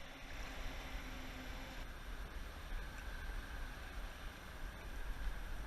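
Steady rushing of river water, an even hiss with a low rumble underneath.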